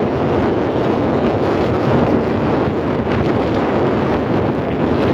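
Strong wind buffeting the microphone in a steady, loud rush, with churning surf beneath it.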